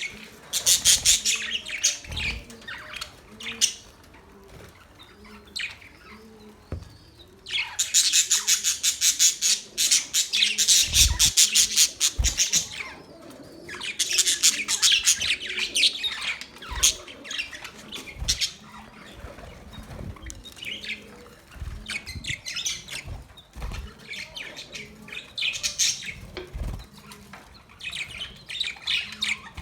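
Budgerigars chirping and chattering in fast, high trains of notes that come in bursts of a few seconds with short lulls between, along with occasional low thumps.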